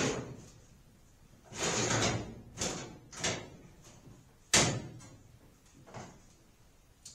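Cockpit escape hatch of a full-scale B-36 flight deck replica being worked by hand: a few short sliding knocks, then a sharp bang about four and a half seconds in as it shuts, and a couple of light knocks after.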